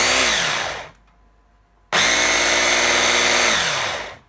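Electric mini chopper motor grinding milk-soaked walnuts in short pulses. It runs for a moment and spins down just under a second in, then a second pulse of about a second and a half starts around two seconds in and also ends with its pitch falling as the blade slows. The short pulses keep the walnuts coarse rather than ground to powder.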